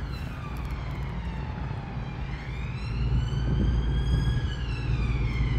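Emergency vehicle siren wailing, its pitch sweeping slowly down, then up, then down again, over a steady low rumble.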